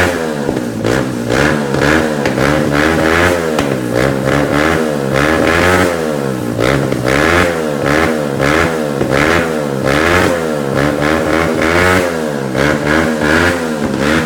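Shelby cafe racer motorcycle's Lifan four-stroke engine being revved again and again, the revs rising and dropping back in quick throttle blips roughly once a second.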